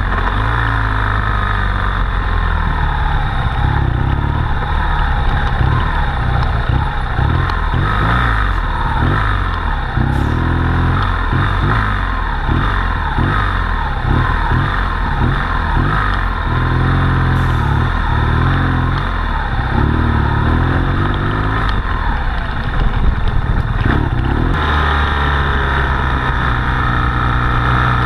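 BMW GS motorcycle engine running under way, its revs rising and falling repeatedly with throttle and gear changes, with wind rushing over the microphone.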